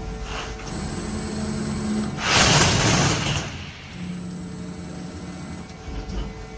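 CNC automatic sheet-metal bending center at work: a low motor hum, broken about two seconds in by a loud hiss lasting a little over a second, then the hum again.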